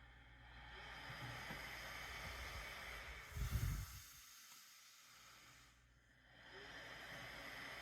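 APAP machine's air hissing softly through a nasal mask, swelling and easing with the wearer's breathing as the machine adjusts its airflow to his breaths. The hiss nearly drops away for a couple of seconds in the middle, and a brief low bump sounds about three and a half seconds in.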